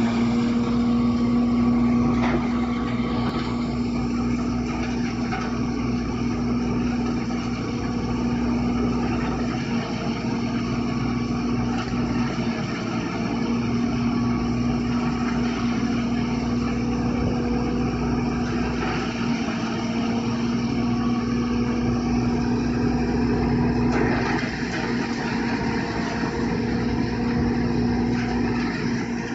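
Electric-motor-driven hammer-mill feed grinder running steadily while it crushes hand-fed dry straw and corn stalks: a loud, even hum with a strong low tone under a dense grinding noise.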